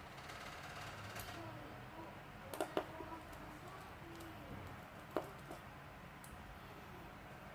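Three light, sharp clicks over a faint steady hum: two close together about two and a half seconds in, and one about five seconds in.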